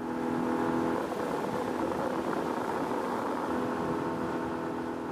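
Dinghy's outboard motor running steadily while the boat is under way across open water.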